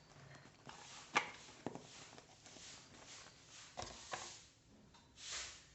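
Faint handling sounds: a few sharp clicks and taps, the loudest about a second in, then soft hissing swells near the end.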